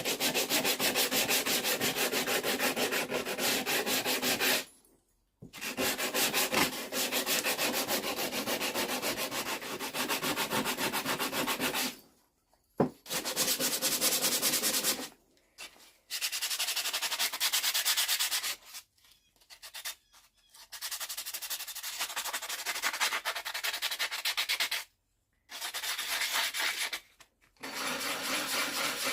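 A tack hammer being sanded with sandpaper to clean it: quick back-and-forth rasping strokes, stopping briefly several times, with one sharp tap near the middle.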